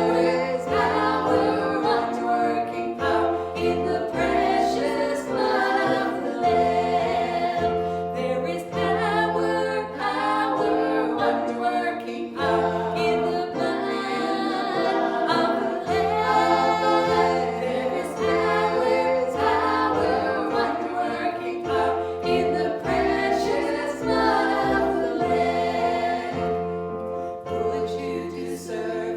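A group of voices singing a gospel worship song together, with sustained low accompanying notes underneath.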